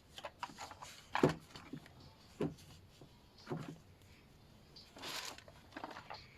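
Colouring tool scratching over paper in short, irregular strokes, with a sharper tap about a second in and a longer stroke near the end.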